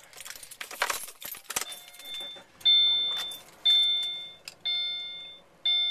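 Car keys jangling on their ring as the key is turned in the ignition, then the car's dashboard warning chime dinging about once a second, each ding ringing and fading.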